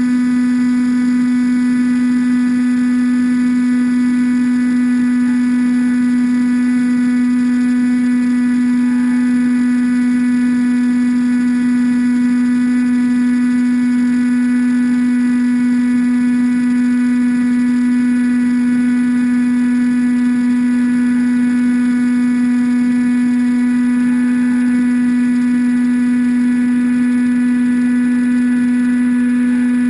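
Electric motor and propeller of an AXN Floater-Jet RC plane running at a steady throttle, a loud even hum that holds one pitch throughout.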